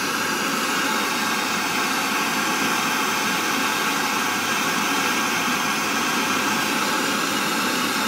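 Handheld gas blowtorch burning with a steady hiss, its flame playing on sugar in a ceramic dish and melting it.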